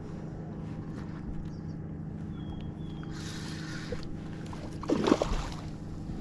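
Motorboat engine running with a steady drone. A short rush of noise comes about three seconds in, and a louder brief knock comes about five seconds in.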